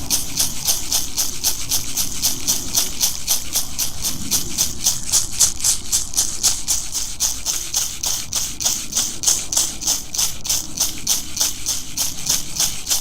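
A hand rattle, as used in shamanic practice, shaken in a steady, even rhythm of about four to five shakes a second.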